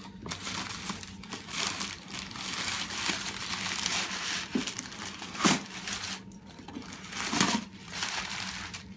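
Packing paper crinkling and rustling as a gift crate is unpacked, with two louder rustles about five and a half seconds in and again two seconds later.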